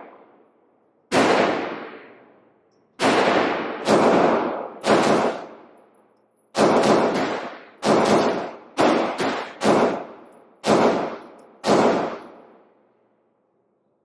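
A Beretta PX4 Compact 9mm pistol fires eleven shots at an uneven pace, some in quick pairs. Each shot echoes in an indoor range.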